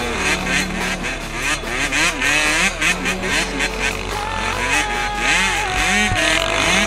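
Dirt bike engine revving up and down while riding, mixed with pop music that has a steady beat.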